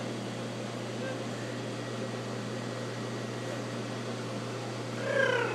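Steady mechanical hum and hiss with a constant low drone, like running equipment. About five seconds in, a high-pitched voice exclaims, its pitch falling.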